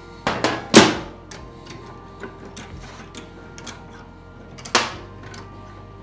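A few sharp knocks as a small metal jack is set down and shifted on the workbench: two close together right at the start, the second the loudest, and one more near the five-second mark, over a quiet background music bed.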